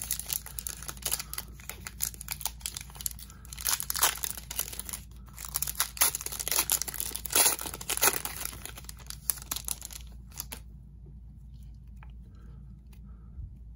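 Foil wrapper of a hockey card pack being torn open and crinkled by hand, a dense run of crackling that stops about ten and a half seconds in.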